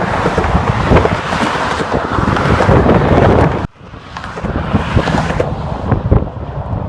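Road traffic on a freeway, with strong wind buffeting the microphone and no horn. The noise cuts off abruptly about three and a half seconds in, then builds again as more vehicles pass.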